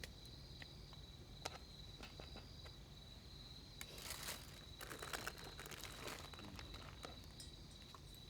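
Insects, crickets by the sound of it, trilling steadily in a high, thin tone, with scattered clicks and a spell of rustling handling noise about four to six seconds in.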